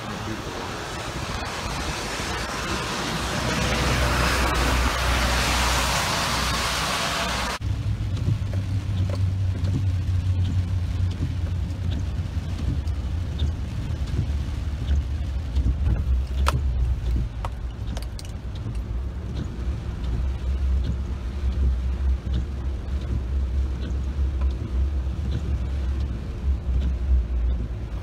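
Heavy rain falling steadily, ending abruptly about seven and a half seconds in. It gives way to the low rumble of a car's engine and tyres heard from inside the cabin on a flooded road, with a few faint clicks.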